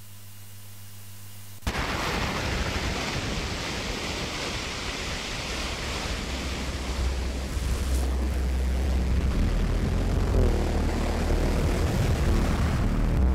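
Electronic music from Ableton Live, triggered from touchAble on an iPad: a dense wash of noise that cuts in suddenly about two seconds in, with a deep bass drone building beneath it and a few pitched tones entering near the end.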